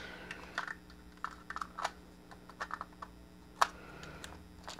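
Small plastic clicks and taps as an action camera is pushed into its clear plastic waterproof housing, with one sharper click about three and a half seconds in.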